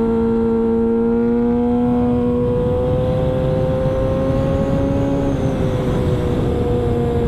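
Sportbike engine held at high revs on a race track, its pitch climbing slowly for about five seconds, then dropping slightly and holding, with wind rushing over the microphone.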